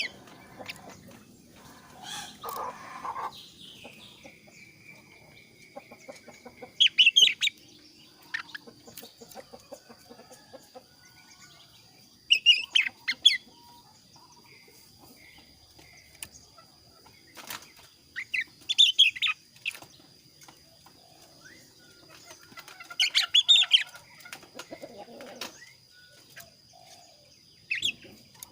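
Male kaso-kaso bird singing: five short, loud song bursts of quick high notes, spaced about five seconds apart.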